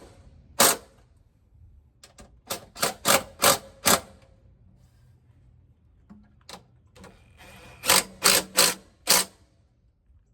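Ratcheting wrench clicking on the return strokes as bolts are tightened: a single click, then a quick run of five at about three a second, and another run of four near the end.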